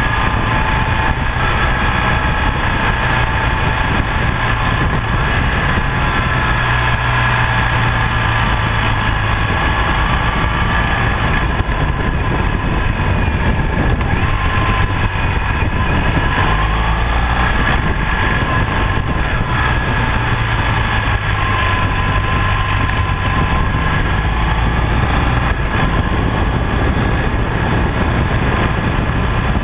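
BMW R1200GS liquid-cooled boxer-twin engine running steadily while riding, under a constant rush of wind and road noise, its low drone shifting a few times as speed changes.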